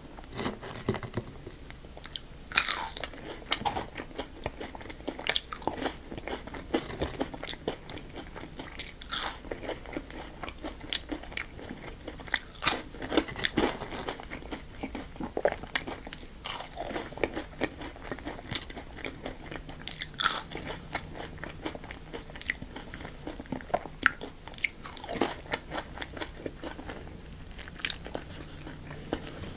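Close-miked eating of Burger King fast food: crisp crunching bites and chewing, with many sharp crackly clicks coming irregularly throughout.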